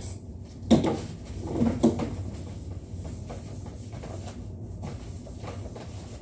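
A sharp knock, then a louder bump and rattle about a second later, with a few quieter knocks after, over a steady low hum.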